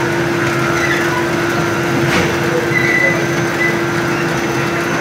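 Freshly serviced belt conveyor running: the drum pulley and belt turning steadily, giving a constant machine hum with one steady low tone and a few faint brief squeaks.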